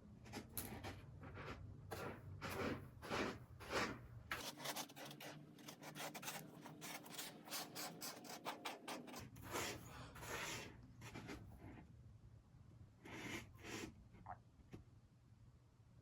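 Irregular short scratching and rubbing noises, coming thick and fast between about four and nine seconds in, then sparser with a lull near the end.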